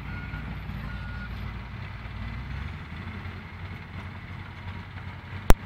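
Heavy diesel earthmoving machinery, an articulated dump truck and a bulldozer, running with a steady low rumble. A reversing alarm beeps twice in the first second and a half, and near the end comes one sharp, loud knock.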